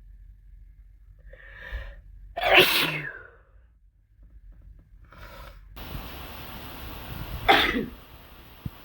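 A person with a cold sneezing twice, each sneeze after a short catching in-breath. The first, about two and a half seconds in, is the longer; a steady hiss comes in before the second, shorter sneeze near the end.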